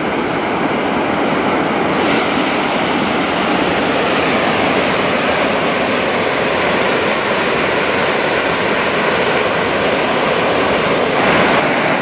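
Large waterfall pouring whitewater into a plunge pool: a loud, steady rush of falling water.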